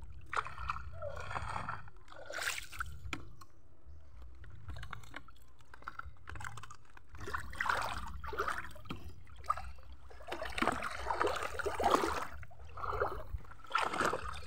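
Shallow water sloshing and splashing irregularly as people wade through it and haul a fishing net, over a steady low rumble.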